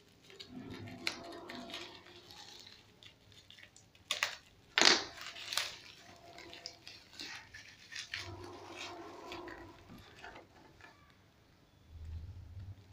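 Plastic courier mailer being cut with scissors and torn open, with rustling and crinkling of the wrapping. A few sharp crackles come about four to five seconds in, the loudest of them near five seconds.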